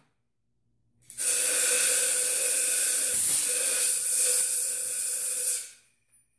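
Compressed-air blow gun blasting into an upside-down shock absorber remote reservoir to clear out aluminum shavings from tapping the cap: one long, loud hiss with a faint whistle in it, starting about a second in and cutting off near the end.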